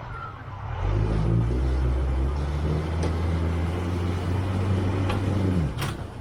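An engine running steadily with a low hum for about five seconds, then its pitch drops and it cuts out near the end, with a few sharp clicks over it.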